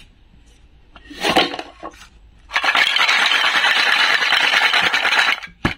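Wooden and plastic toy food pieces rattling against each other in a plastic basket as it is shaken: a short clatter about a second in, then a steady rattle for about three seconds, and a sharp click near the end.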